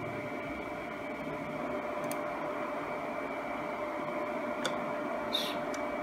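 Steady hum and hiss of the cooling fans in a network rack, carrying faint steady tones, with a few faint clicks.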